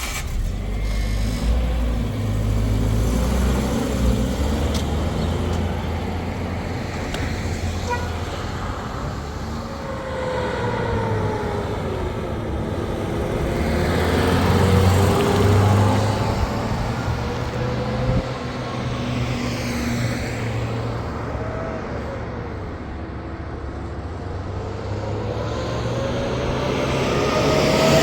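Car engine running while driving, its pitch falling and rising a couple of times as the speed changes.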